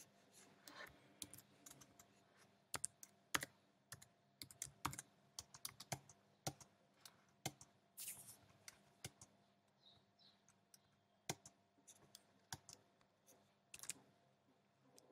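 Faint computer keyboard typing: irregular keystrokes, several a second, easing off about a second before the end.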